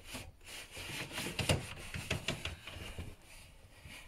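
Handling noise: scattered light clicks and knocks with some rubbing, as plastic toy parts are moved by hand.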